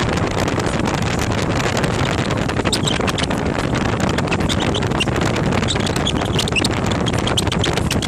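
Wind buffeting the microphone on a moving Harley-Davidson Street Glide, with the motorcycle's V-twin engine running steadily underneath at riding speed.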